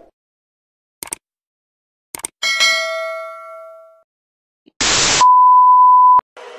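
Intro sound effects: two short clicks, then a bell-like ding that rings out and fades over about a second and a half. Near the end, a brief burst of static gives way to a steady test-tone beep that lasts about a second and cuts off sharply.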